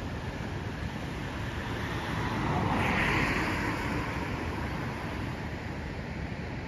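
A car passing on the road, rising to its loudest about three seconds in and then fading, over steady wind noise on the microphone.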